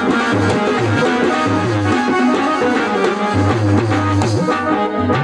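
Instrumental passage of devotional katha music: a drum beat with a repeating low bass pattern under melody instruments, without singing.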